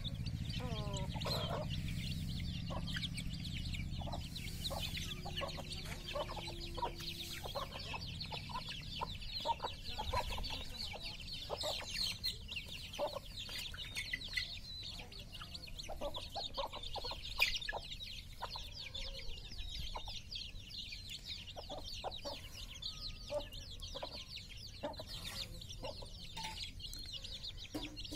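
A flock of domestic chicks peeping continuously, many short high-pitched cheeps overlapping, with some clucking and a low rumble in the first few seconds.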